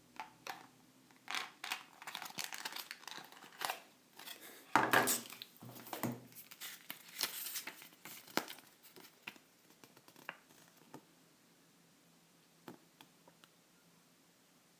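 Plastic packaging crinkling and rustling as small headset parts are handled, with scattered light clicks. It is busiest in the first half, loudest about five seconds in, and thins out to a few faint ticks after about eleven seconds.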